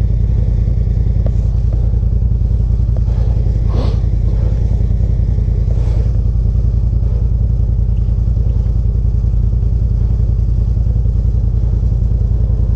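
Side-by-side UTV engine idling with a steady, even low throb. Brief clattering knocks come about four seconds in and again near six.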